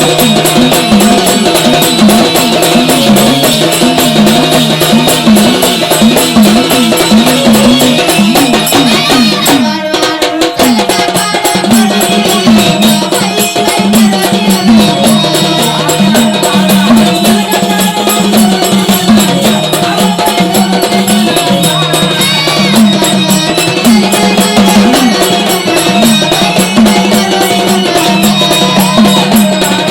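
Marathi Waghya devotional folk music: fast, steady drumming with jangling percussion under a wavering melody. The music drops out briefly about ten seconds in.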